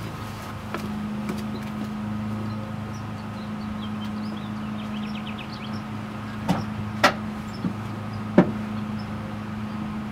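The converted Chevrolet Express van's electric drive motor and driveshaft run with a steady low hum. A few sharp clicks or knocks come in the second half.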